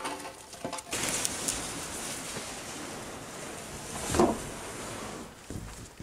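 A few light knocks of wooden boards being handled, then an empty Norwesco 1550-gallon HDPE plastic water tank being pushed and slid across wooden boards: a steady scraping rush, with a louder scrape about four seconds in.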